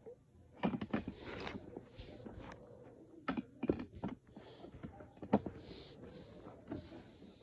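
Irregular light knocks and clicks with rustling in between, strongest in a cluster about a second in and in single knocks near the middle.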